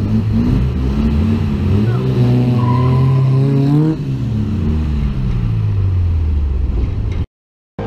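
Air-cooled flat-four engine of a vintage VW Beetle pulling away. It revs up steadily, breaks off about four seconds in at a gear change or lift-off, then winds down before the sound cuts off abruptly near the end.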